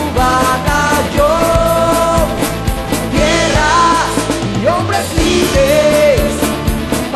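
Music with a steady beat and a melody line.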